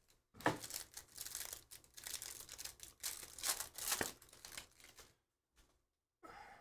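Plastic wrapper of a trading card pack torn open and crinkled by hand: a run of rustling tears with one sharp crackle about four seconds in, stopping about a second later.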